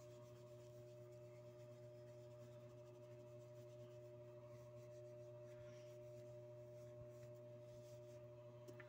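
Near silence: faint rubbing of a cloth polishing a metal badge, under a steady low hum.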